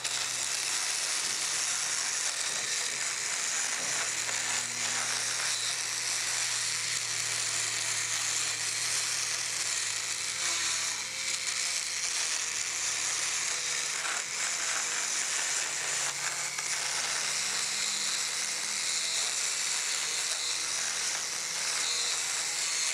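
Motorized equine dental float on a Dremel-type motor grinding a horse's cheek teeth: a steady high-pitched grinding whir over a low motor hum.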